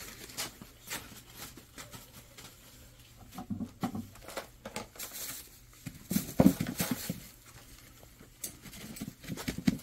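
A cat chewing fish scraps with bones in them, giving irregular short crunches and clicks, loudest about six and a half seconds in.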